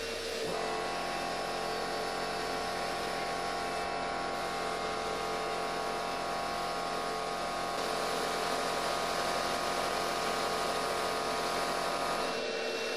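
Sandblasting cabinet's blast gun running steadily, compressed air and abrasive hissing against a rusty steel rod, with a steady hum underneath that changes pitch about half a second in and again near the end.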